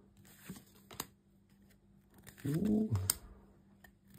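Pokémon trading cards being flipped through in the hand: a few sharp clicks and light rustles as cards are slid from the front of the stack to the back. A brief vocal sound comes about two and a half seconds in.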